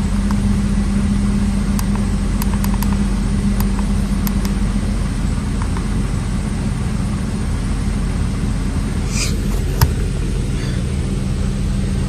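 Infiniti M37's V6 engine idling steadily with a low rumble, the misfire gone now that a new coil pack is in cylinder 5. A few faint clicks a few seconds in and one sharp click about ten seconds in.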